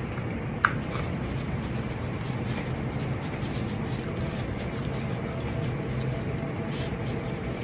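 Faint rustling of a paper tissue being folded and wrapped in the hands, over a steady low hum, with one short sharp click a little over half a second in.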